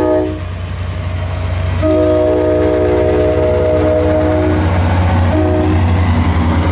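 ACE F40PH-3C diesel locomotive sounding its multi-chime air horn for a grade crossing as the train departs. A blast cuts off just after the start, a long blast comes from about two seconds in, and a short one comes near the end, over the train's steady low rumble.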